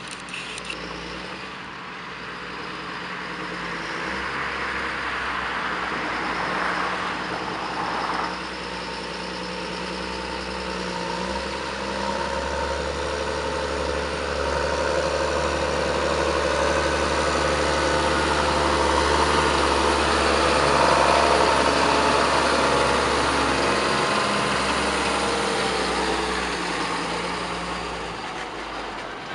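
John Deere 7820's six-cylinder turbo-diesel engine running steadily as the tractor drives past. It grows louder to a peak about two-thirds of the way through, then fades.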